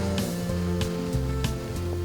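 Background music: a bass line of low notes stepping from pitch to pitch under a light, regular ticking beat.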